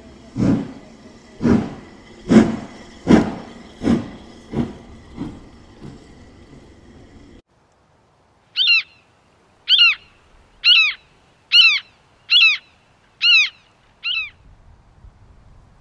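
A series of ringing strikes that come ever faster and fade, cut off abruptly about seven seconds in. After a short silence a bird gives seven short calls, a little under a second apart.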